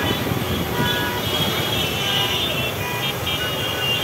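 Street traffic with vehicle horns honking, several steady horn tones overlapping and breaking off, over the hubbub of a large crowd.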